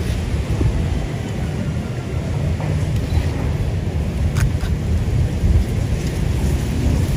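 Wind buffeting the microphone: a steady low rumble that rises and falls a little.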